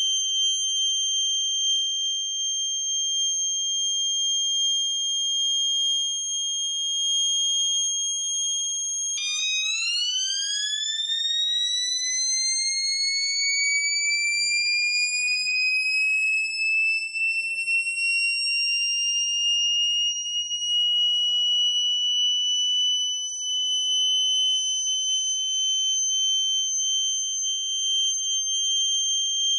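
Homemade microcontroller-driven electronic siren imitating a factory siren, holding a steady high wail. About nine seconds in its pitch drops abruptly, then climbs smoothly back up over some ten seconds, like a motor siren spinning up, and holds at the top again.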